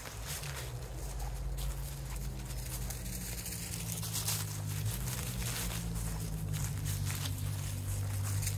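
Footsteps crunching through leaf litter and twigs on a forest floor, a few steps a second, over a low steady hum that shifts in pitch a few times.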